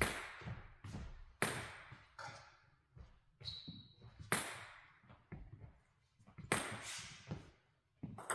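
Table tennis ball clicks, bounces and bat taps between points, irregularly spaced and echoing in a large sports hall. There is one short high squeak near the middle.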